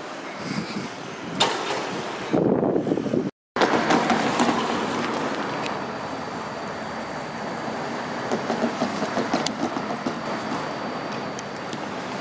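Steady rumble of passing vehicles, with the sound cutting out completely for a moment about three and a half seconds in.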